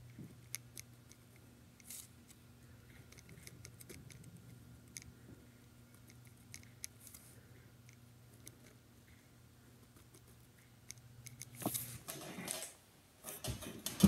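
Pen scratching on lined notebook paper in short, faint strokes, over a faint steady hum. Near the end come a few louder rustles and knocks.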